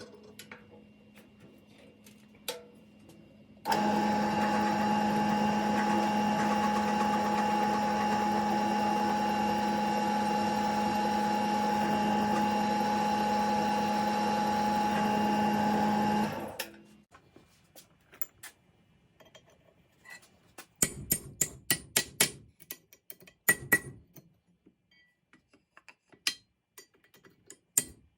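Electric power-tool motor starts suddenly and runs at a steady speed with a constant hum for about thirteen seconds, then winds down. Scattered light metallic clicks and clinks follow.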